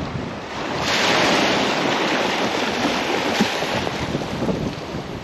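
Small waves breaking and washing up a sandy beach, swelling about a second in, with wind buffeting the microphone.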